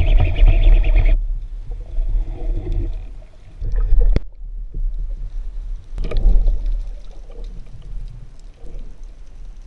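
Water noise on a camera at or under the sea surface: a rumbling, sloshing hiss, loudest in the first second, with a couple of sharp knocks about four and six seconds in.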